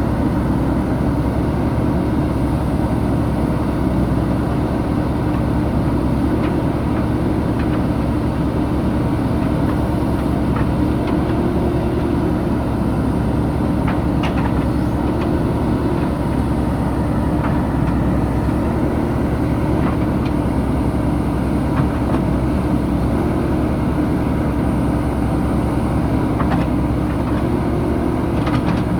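JCB 3DX backhoe loader's diesel engine running steadily while the machine works, with a few faint knocks.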